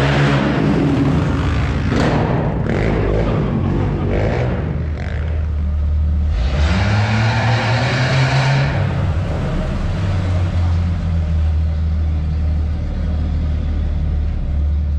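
Off-road vehicle engines running at low revs with a steady low hum. About six seconds in, a 4x4 drives past close by, its engine note rising and louder for a couple of seconds before it moves off.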